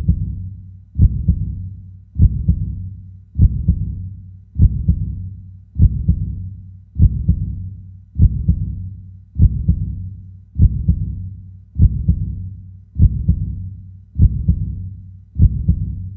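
Heartbeat sound effect: a slow, steady, deep double thump, a strong beat followed at once by a weaker one, repeating about every 1.2 seconds.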